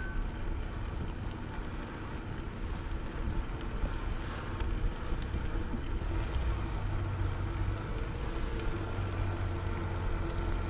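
Wind buffeting the microphone of a camera carried on a moving bicycle: a steady low rumble, with the tyres rolling over pavement and faint clicks from the bumps.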